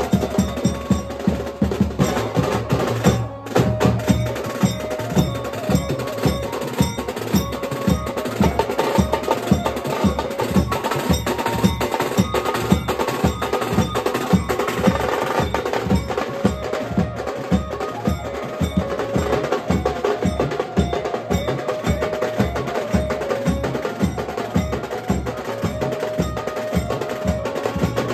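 Live band music led by drums beating a fast, steady rhythm under a melody line, with a brief drop about three seconds in.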